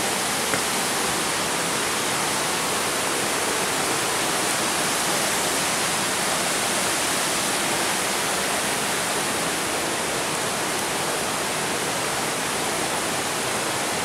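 Steady, unbroken rush of flowing water.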